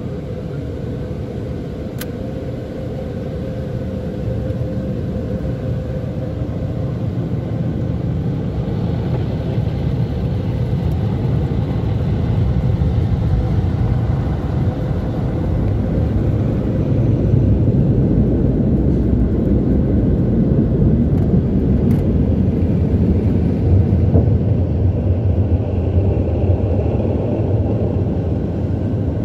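Mark VII ChoiceWash XT rollover car wash working over the car, heard from inside the cabin: a steady rumble of water spray and the machine's brushes, growing louder over the first half.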